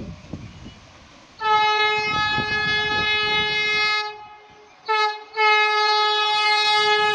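Vande Bharat Express train horn sounding as the train approaches at speed: a long blast, a short blip, then another long blast, all on one steady note.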